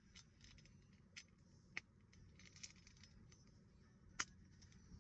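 Faint, scattered soft clicks from a simple dimple fidget toy's silicone buttons being pushed, with a sharper click just before two seconds in and the loudest one about four seconds in.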